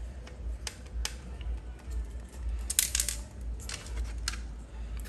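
Small sharp clicks and rattles of a screwdriver on the screws of a router's circuit board and of the plastic router housing being handled, with the loudest cluster of clicks about three seconds in.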